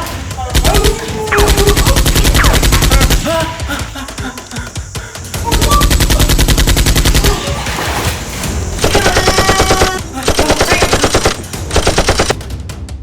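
Rapid automatic gunfire in several long bursts, separated by short pauses, as blasters fire during a nerf battle.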